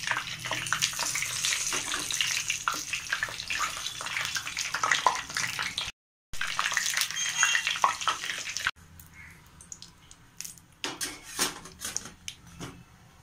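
Whole small brinjals (eggplants) sizzling and crackling in hot oil in a pan, broken by a brief gap about six seconds in. The sizzling stops suddenly after about nine seconds, followed by a few metal clinks and knocks of a wire skimmer against a steel plate.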